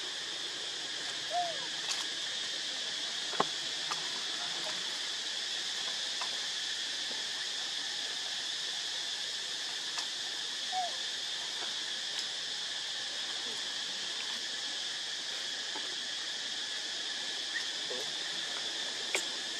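Steady high drone of an insect chorus, held in several pitch bands, with a few brief faint squeaks and scattered soft clicks over it.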